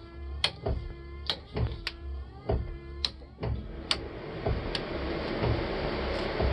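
Toggle switches on a custom dash switch panel clicking on one after another, about seven sharp clicks. A steady pitched electrical hum runs under the first few clicks. A steady rushing noise starts about halfway through as something that was switched on begins running.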